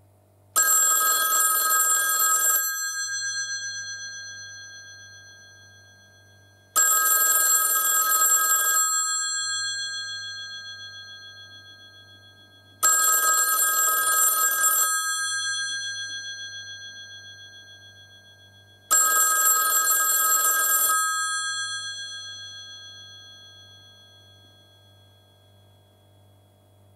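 Western Electric 500 rotary telephone's bells ringing in the American single-ring cadence: four rings of about two seconds each, one every six seconds, the bell tones ringing on and fading after each ring.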